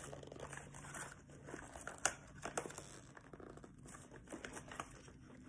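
Beauty products and their packaging being handled and rummaged through: faint crinkling and rustling with a few sharp taps, the sharpest about two seconds in.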